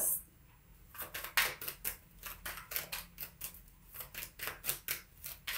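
A deck of tarot cards being shuffled by hand: a quick, irregular run of card clicks and slaps, about five a second, starting about a second in.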